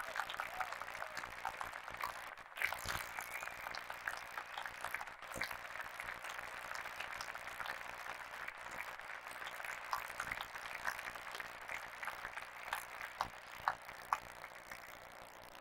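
Audience applauding: a steady patter of many hands clapping at once, easing off gradually toward the end.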